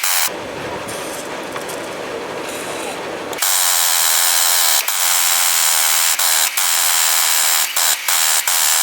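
Air tool running steadily, backing out a tight engine-mount bolt that fights it all the way out, which the owner puts down to a lot of Loctite. It runs softer for the first three seconds, then louder and higher, with a few brief stutters.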